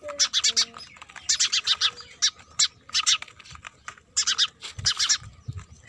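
Sparrows chirping in repeated bursts of quick, harsh, high calls while being handled in a wire cage trap, with a few dull handling thumps near the end.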